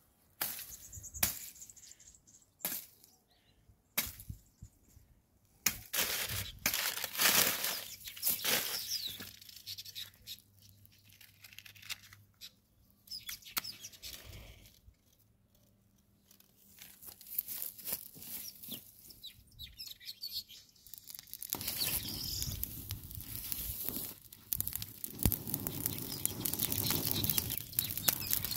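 Dry brush and twigs rustling and snapping, with paper crinkling as it is stuffed under the pile. There are sharp separate snaps in the first several seconds. From about three-quarters of the way through, a denser steady crackling rustle builds as the paper and dry grass catch fire.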